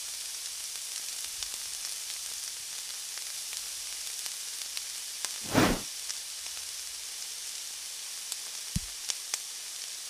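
Ginger-garlic paste frying in hot oil and ghee: a steady sizzle with scattered small pops as red chilli powder and turmeric are stirred in. One brief louder noise a little past halfway, and a soft low thump near the end.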